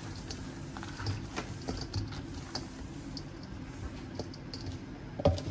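Yangnyeom fried chicken being tossed and mixed by gloved hands in a stainless steel bowl: soft, irregular clicks and light knocks as the sauced pieces are turned.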